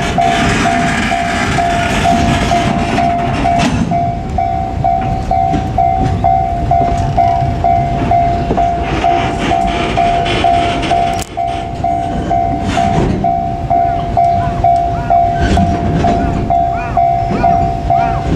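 Japanese level-crossing warning bell ringing steadily, about two dings a second, over the rumble and clatter of a JR Freight train rolling past the crossing.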